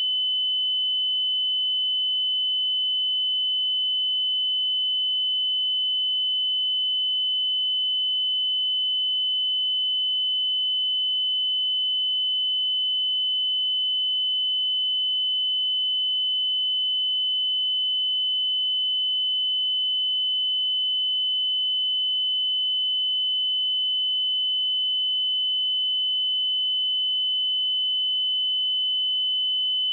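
A pure 3022 Hz sine-wave test tone, one steady high-pitched note held at an even level without change.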